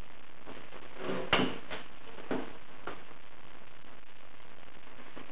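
A few short, sharp metallic knocks and clunks from a dent puller working on studs welded to a dented car body panel, the loudest about a second and a half in, over a steady hiss.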